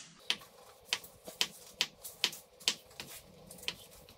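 Kitchen knife dicing a ripe avocado into small cubes on a wooden cutting board: a run of sharp taps of the blade on the board, about two a second and unevenly spaced.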